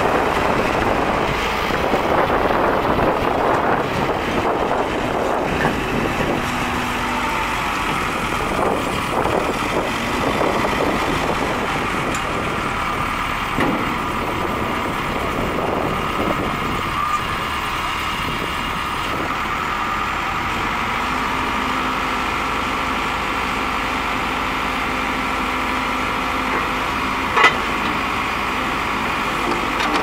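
Case 580L backhoe-loader's turbocharged four-cylinder diesel engine running steadily while the machine drives, turns and works its hydraulics to lower a rear stabilizer leg. A single sharp click near the end.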